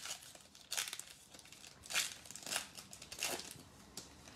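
Foil wrapper of a trading card pack crinkling and tearing as it is ripped open by hand, in about five short rustles.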